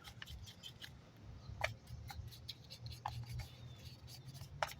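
Faint scraping and scrubbing of thick caked-on grime off a chainsaw part: an irregular run of small scratchy clicks over a faint low hum.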